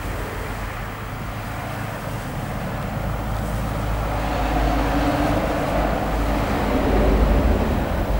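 Low rumbling background noise that grows louder from about four seconds in and peaks near the end.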